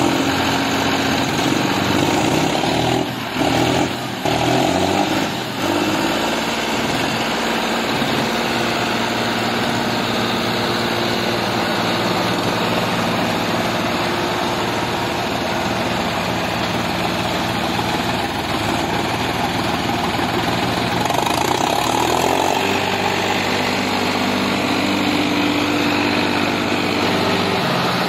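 Diesel engines of two tractors, a Farmtrac 60 T20 among them, running hard under load as the chained tractors pull against each other in a tug-of-war. A few brief dips in the engine sound come early, and about three quarters of the way in the engine note climbs and holds higher as the throttle is opened further.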